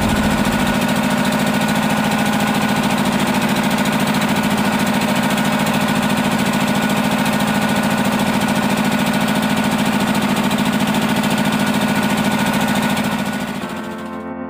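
Fishing boat's engine running at a steady speed, a loud even drone with a fine regular pulse; it fades out about a second before the end as music comes in.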